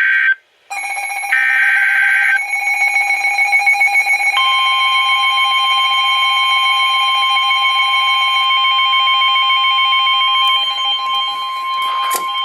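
Emergency Alert System warning: two short screeching bursts of the digital SAME header data, then the steady electronic attention tone. A second steady tone joins about four seconds in, and it sounds loud and unbroken to the end.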